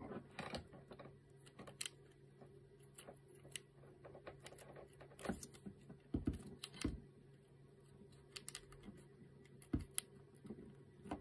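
Scattered light clicks and taps of a metal servo horn and 3D-printed plastic parts being handled and pressed onto a hobby servo, over a faint steady hum.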